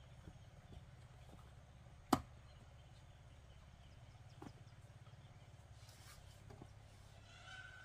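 A sharp knock of wood on wood about two seconds in, as a long wooden pole is handled, followed by a couple of fainter knocks.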